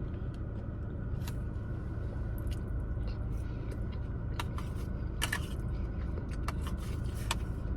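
Chewing a mouthful of burrito, with short wet mouth clicks scattered through, over a steady low hum of a car cabin.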